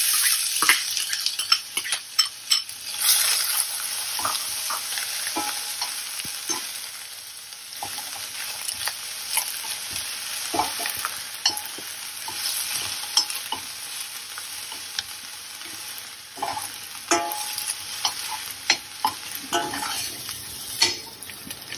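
Chopped onion sizzling in hot oil with whole spices in a stainless steel pan, with a metal spoon stirring and scraping against the pan in many small clicks. The sizzle is loudest in the first few seconds, then settles lower.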